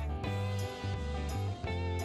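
Background instrumental music led by guitar, over a steady bass line and a regular beat.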